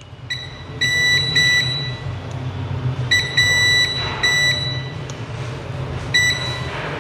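Digital multimeter in continuity (buzzer) mode giving short, high-pitched beeps, several in clusters with pauses between, as the probe touches the board. Each beep means continuity to ground: the capacitors on the VPH power line are shorted.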